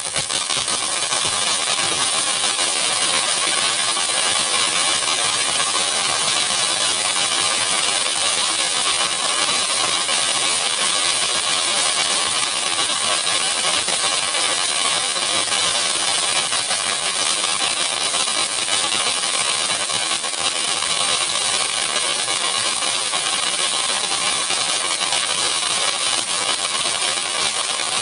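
Flower-pot fountain firework (pookutti) burning, with a loud, steady hiss as it sprays a column of sparks.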